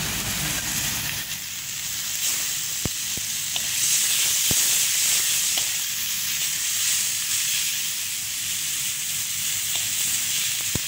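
Chopped garlic and onion sizzling in hot oil in a wide metal pan as they are stirred with a spatula: a steady frying hiss, with a few sharp clicks.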